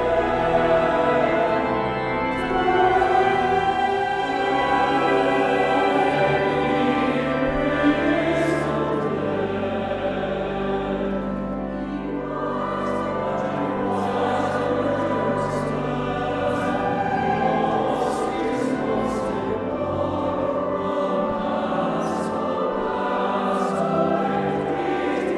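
Mixed choir singing an Easter anthem with pipe organ accompaniment, the organ holding low sustained notes beneath the voices through the middle.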